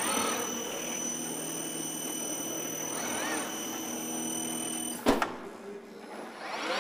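A NACHI SRA166 industrial robot running a seam-welding cell: a steady electrical hum with high whining tones, and servo motor whines that rise and fall in pitch as the arm moves, about 3 seconds in and again at the end. A sharp clack comes about 5 seconds in, after which the high whine stops.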